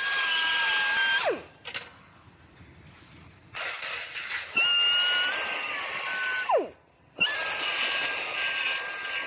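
High-speed air tool cutting the sheet-metal radiator support of a Subaru Forester, a steady high whine with hiss. It shuts off and winds down with a falling whine about a second in and again past the middle, starting up again after each stop.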